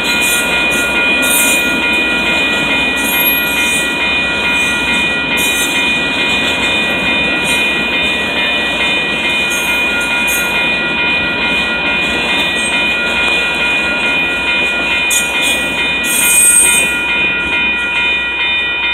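Double-stack intermodal freight cars rolling past: a steady rumble and wheel clatter with a steady high ringing tone over it, swelling briefly near the end.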